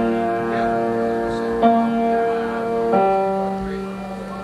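Instrumental music: held notes over a steady low drone, with a new note or chord sounding about every second and a half.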